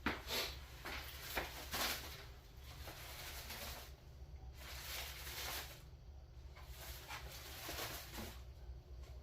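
Handling noise while unpacking lathe parts: a few sharp knocks in the first two seconds, then irregular rustling of packaging.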